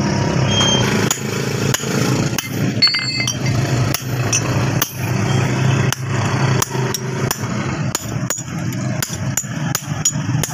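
Blacksmith's hammer striking steel on an anvil while forging an axe head, in irregular blows about one to two a second, over a steady low hum.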